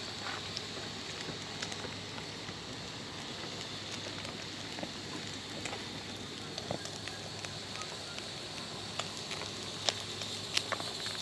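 Steak sizzling on a grill over hot coals, a steady hiss with scattered small pops and crackles.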